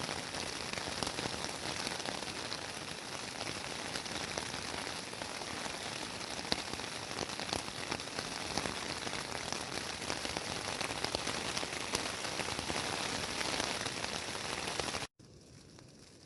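Steady rain falling, with many individual drops ticking sharply close by. It cuts off suddenly near the end, leaving a much quieter background.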